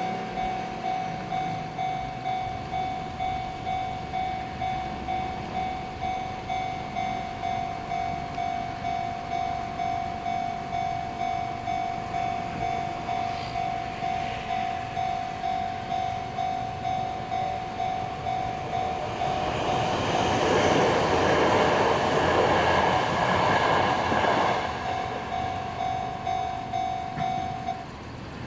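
Japanese level-crossing warning bell ringing in a steady, regular ding-ding. About twenty seconds in, a Sanyo Electric Railway electric train passes over the crossing for about five seconds: a loud rush of wheels on rail and motor noise that is the loudest sound here. The bell stops near the end.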